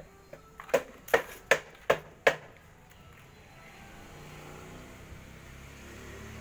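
Five sharp, evenly spaced knocks in quick succession, about two and a half a second, then a low steady hum that builds from about four seconds in.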